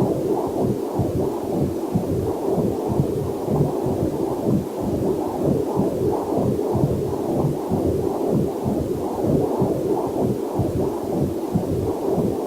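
Heartbeat picked up by a fetal Doppler monitor: a fast, even run of muffled whooshing pulses.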